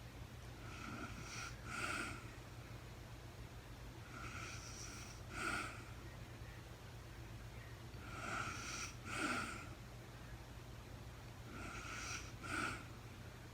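A sleeping woman snoring, four breaths about three and a half seconds apart. Each breath has a softer drawn-out part followed by a shorter, louder one, over a steady low hum.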